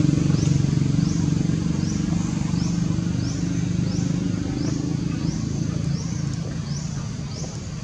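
A low droning hum that slowly fades, under a short high rising chirp repeated about every two-thirds of a second.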